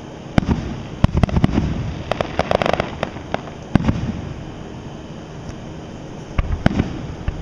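Aerial fireworks shells bursting with a series of sharp bangs, including a quick run of crackling pops about two to three seconds in and a further pair of bangs near the end.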